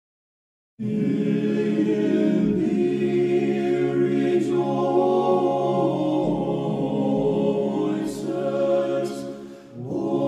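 An a cappella choir singing Orthodox church chant in long held chords, starting about a second in, with a short break near the end before the next phrase.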